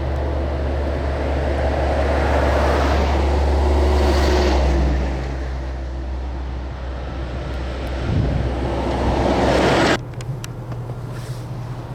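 Vehicle engine running with tyre and road noise that swells and fades twice. The sound drops off abruptly near the end.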